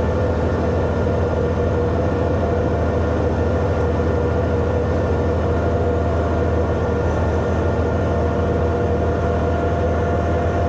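Bulldozer's diesel engine running steadily under load while pushing a blade-load of material up a stockpile, a deep drone with a steady whine above it.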